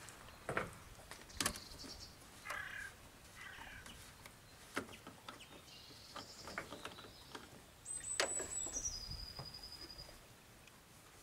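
Scattered clicks and knocks of plastic parts being handled under a car bonnet as the coolant reservoir is opened and a coolant jug is brought up to fill it. About eight seconds in, a brief high whistle drops a step in pitch and holds for about two seconds.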